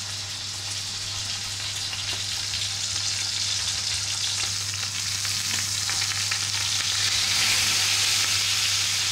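Stuffed rabbit roll sizzling as it sears in hot oil in a frying pan, a steady hiss that grows a little louder near the end. The meat is being seared to crisp the outside.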